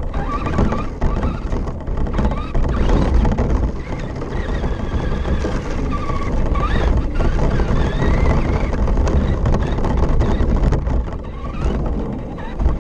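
Radio-controlled short course truck driving over dirt and grass, heard from a camera mounted on its body: a steady low rumble and rattle from the wheels and chassis, with the electric motor's whine rising and falling.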